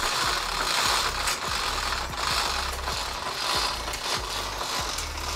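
Zebra roller blind being operated by its bead chain, the roller's clutch mechanism ratcheting and the chain beads clicking steadily as the blind lowers.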